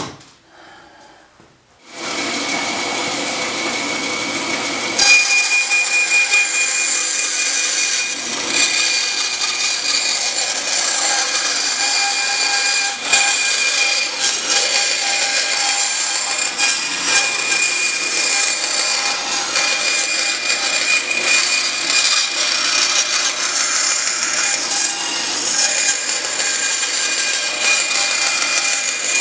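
Bandsaw comes on about two seconds in and runs free, then from about five seconds in its blade cuts through acrylic sheet, a steady loud sawing noise with a high whine, as the sheet is fed around a traced circle.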